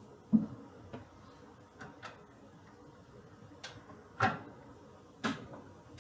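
A few scattered light knocks and clicks of objects being handled, the loudest about a third of a second in.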